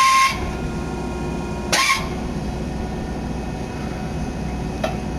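Alliance hardbanding grinding unit's machinery running with a steady hum, with two short hissing bursts, one right at the start and another about two seconds in.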